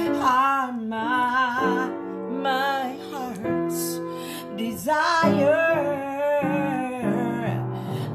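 A woman singing a slow worship melody with a wavering vibrato, accompanying herself on piano with held chords. About halfway through the singing breaks off briefly while the piano sustains, then resumes.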